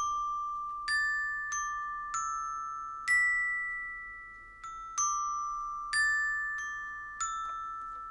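Glockenspiel played solo with a mallet: single high, bell-like notes struck one at a time, about one a second, in a slow melody. Each note is left to ring on, so it overlaps the next.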